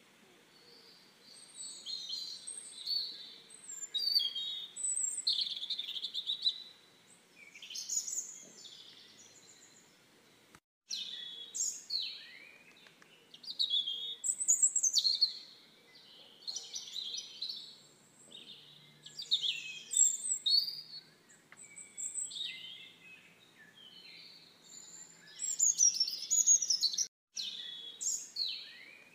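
Small songbirds chirping and singing, many short, quick calls overlapping one another; the sound breaks off briefly twice.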